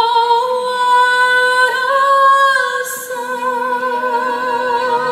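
Fireworks-show soundtrack: a female voice holds one long sung note, steady at first and then with vibrato. A low sustained note joins about three seconds in, with a brief hiss at the same moment.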